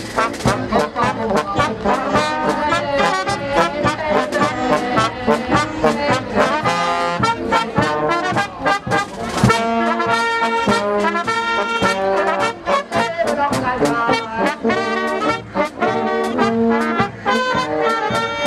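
A street brass band with trombone and tuba plays a tune, with an abrupt change to another passage about halfway through.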